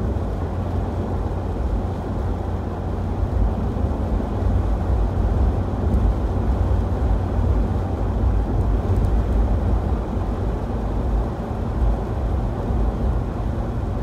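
Steady road noise of a car driving on a wet highway, heard from inside the car: a constant low rumble of tyres and engine with a hiss from the wet road surface.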